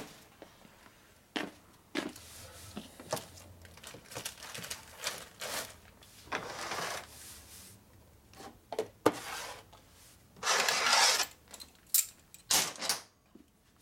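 Small metal parts clinking and clicking as they are picked up and set down on a steel workbench, with a few bursts of rustling from handled packaging and a rag, the longest just after ten seconds in.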